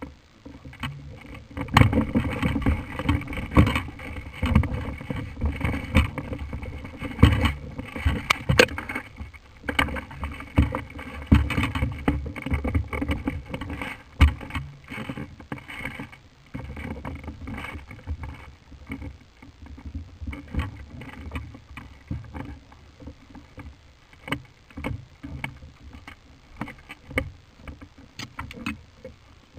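Irregular rustling and scraping with scattered sharp knocks and clicks, busiest in the first half and quieter after.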